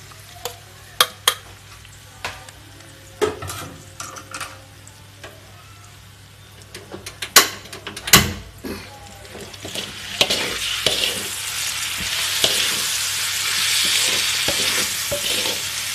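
Raw beef pieces are tipped from a plate into a metal wok of spices and stirred with a wooden spatula, with scattered sharp knocks of the spatula and plate against the wok, loudest about seven and eight seconds in. From about ten seconds in, a hiss of sizzling builds and holds as the meat is stirred and fried.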